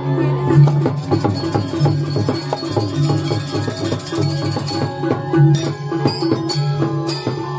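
Balinese gamelan playing accompaniment for a Jauk mask dance: kendang hand drums beating dense, quick strokes over held, ringing pitched notes that pulse on and off.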